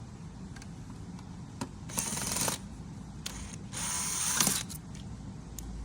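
Ratchet tool clicking as it loosens the screws that hold the dash touchscreen, in two short bursts about two and four seconds in, with a few single clicks between.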